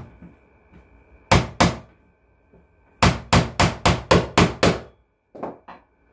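Small hammer knocking on the wooden retaining strip inside the top of a wooden box: two blows, then a run of seven quick blows at about four a second, then two softer knocks near the end.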